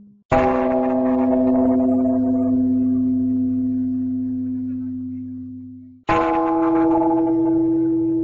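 Singing bowl struck twice, about six seconds apart, each strike ringing on with several steady tones that slowly fade; the second strike rings a little higher in pitch.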